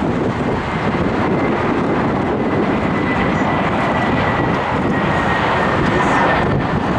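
Airbus A321 airliner's jet engines passing low on final approach: a steady rushing noise with a faint high whine that slowly falls a little in pitch.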